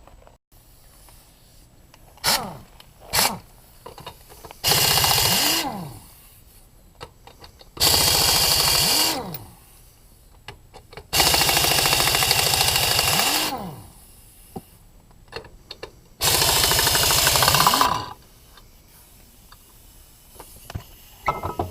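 Impact wrench undoing the sand rail's wheel lug nuts: two short blips, then four long bursts of rapid hammering, each with the motor pitch rising and falling.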